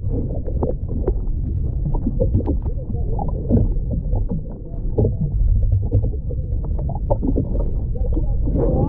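Underwater sound picked up by an action camera held beneath the sea surface: a dull, steady low rumble of moving water with scattered muffled knocks and clicks, every high sound cut off.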